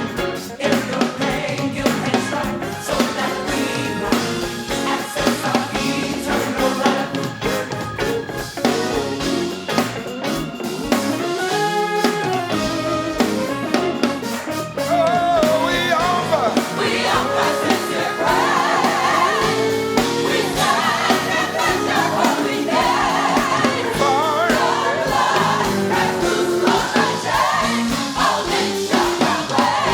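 Live gospel music: a choir and singers over a band with drum kit.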